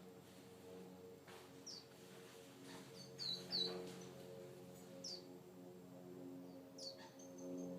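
Quail calling in short, high chirps that fall in pitch, about five of them with a quick pair about halfway through, then a run of rapid high peeps near the end. A steady low hum runs underneath.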